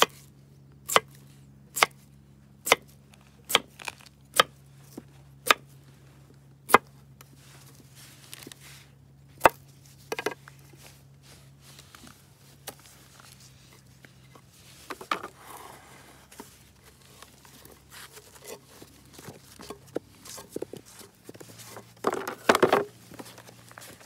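Knife chopping through a Chinese yam (nagaimo) on a wooden plank: nine sharp chops over the first ten seconds, about one a second at first. After that come softer knocks and rustles as the cut pieces are handled, with a louder rustling scrape near the end.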